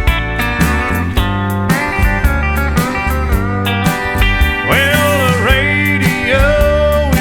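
Instrumental country music with a steady drum beat; sliding guitar lines come in over the second half.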